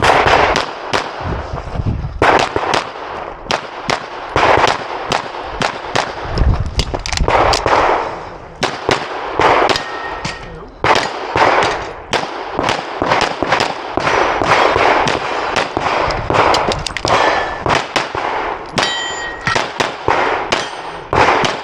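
CZ Shadow 2 pistol firing a USPSA stage: a long run of loud, sharp gunshots in quick strings, with short gaps between strings, some with a clanging ring after them.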